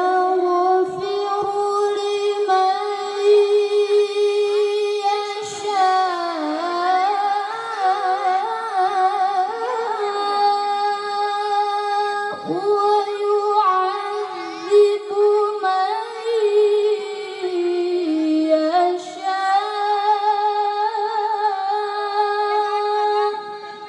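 A woman singing long, held notes with vibrato, mostly around one pitch, sliding between notes a few times; she stops just before the end.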